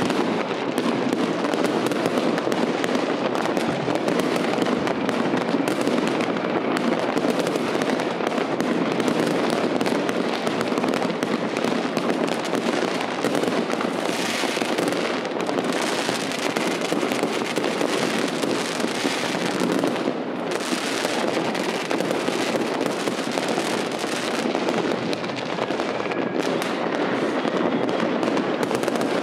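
Many fireworks going off at once: a dense, continuous crackle of bangs and pops with no break, with brighter crackling flurries about halfway through and again near the end.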